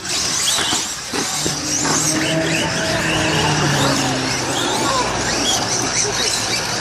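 Radio-controlled car running hard, its motor whining with quick rises and falls in pitch as it speeds up and slows, over a steady hiss of tyre and drivetrain noise.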